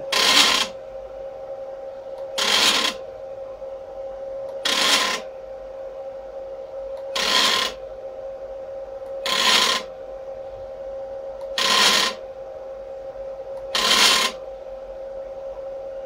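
NEMA 17 stepper motors of a DIY CNC laser engraver, driven in full-step mode, jog the axis in seven short moves about every two seconds, each a brief buzzing rattle. A steady whine runs underneath the moves.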